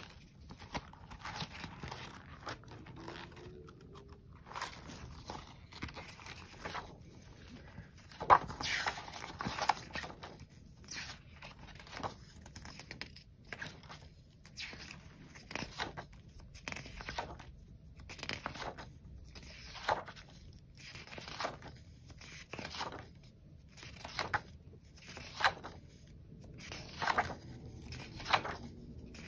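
Paper rustling in short swishes, roughly one a second, as the pages of a paper monthly planner are turned.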